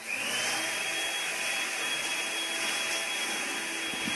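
An electric motor starts up and runs steadily, its whine rising over the first half-second and then holding at one pitch.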